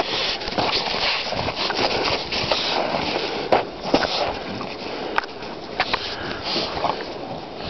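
English bulldogs sniffing and breathing noisily as they nose at each other in the snow, with irregular crunches and rustles of snow.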